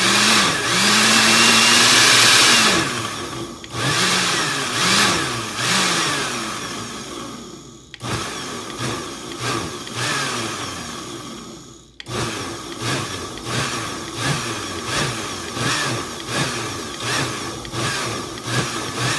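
Countertop blender motor run in pulses, puréeing a thick oil-and-herb marinade to get it liquid. The motor's pitch rises and falls with each press, and it stops briefly about eight and twelve seconds in.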